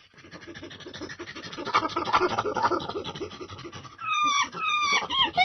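Monkey calling with a rapid run of short pulsed grunts that grows louder, then, about four seconds in, breaking into loud screeches that fall in pitch.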